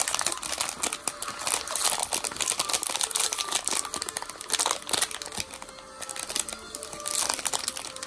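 Foil blind-box bag crinkling and crackling as hands crumple and pull it open, in dense irregular crackles that ease off briefly about three-quarters of the way through.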